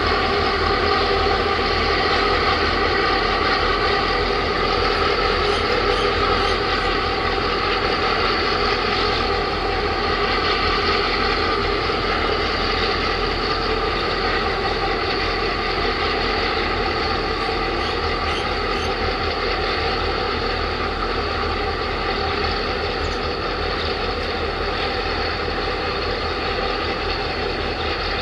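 Steady mechanical drone from a large container ship's engines and onboard machinery, with many steady hum tones layered over a low rumble.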